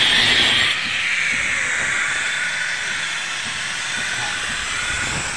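Angle grinder grinding into a concrete wall, a loud steady hissing whine. About a second in it drops in loudness and pitch, then carries on steadier and lower.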